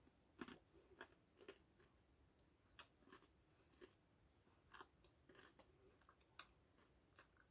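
Faint crunching of hand-cooked crisps being chewed: short, sharp, irregular crunches about once or twice a second.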